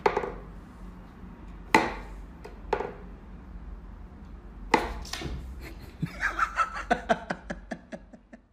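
Wooden clacks from a Carno wooden whack-a-mole cat toy as its pegs are pushed and the toy mice pop up through the holes: four sharp single knocks, a second or so apart, then a quicker run of lighter taps near the end, over a low steady hum.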